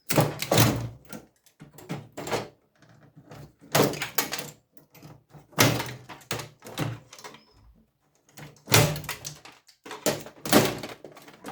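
Irregular knocks, clunks and rattles from the sheet-metal casing of a microwave oven as its internal wiring is pulled out by hand, about a dozen sudden hits with short quiet gaps between them.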